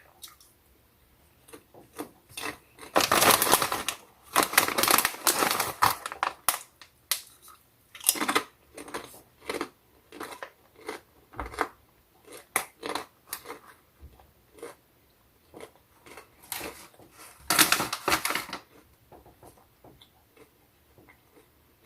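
Crunching and chewing of Popcorners sea salt popped-corn chips, in irregular crackly bursts, with longer, louder bursts about three seconds in and again near the end.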